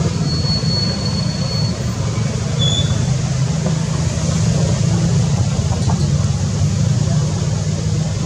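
Steady, loud low rumble throughout, with a thin high whistle in the first two seconds and a brief high chirp at about three seconds.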